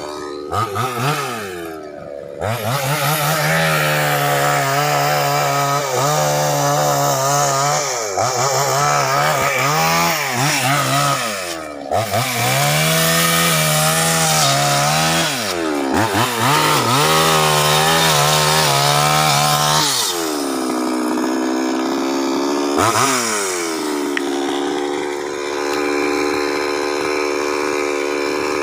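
Two-stroke chainsaw cutting through a felled tree trunk. It revs up and holds steady under load through several passes of a few seconds each, with brief drops in engine speed between them, then runs more evenly near the end.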